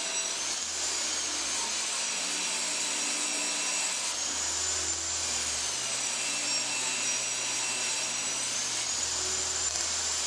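Woodworking power tool running steadily with a high whine that slowly rises and falls in pitch, as maple boards are edge-jointed or ripped.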